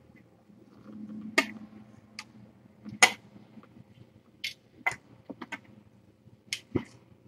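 Irregular sharp clicks and taps, about nine of them, spaced unevenly, with the loudest about three seconds in, over a faint low hum.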